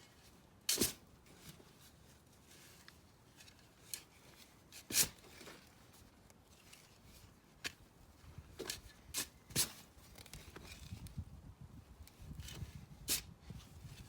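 Scattered sharp clicks and knocks of small objects being handled, about six in all, with faint rustling between them.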